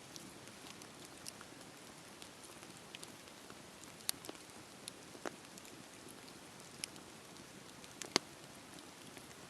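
Wood bonfire crackling: a soft steady hiss with scattered sharp pops and snaps, the loudest pop about eight seconds in.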